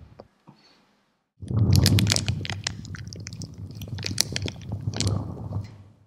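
Foley crackling-fire effect: dense, irregular crackles from something crumpled close to the microphone, over a low rumble of breath blown into the mic, starting about a second and a half in and fading out near the end.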